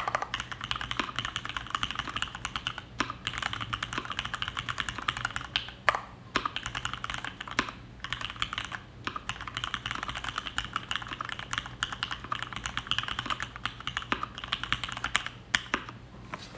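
Fast, continuous typing on a DuckMini v1 mechanical keyboard with Cherry MX Black linear switches on 62 g springs and PBT dye-sublimated keycaps. Brief pauses and some louder single keystrokes break up the rapid clatter.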